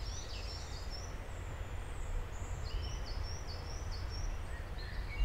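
Woodland birdsong: small birds giving repeated short, high chirps and whistles over a steady low rumble, with one short thump at the very end.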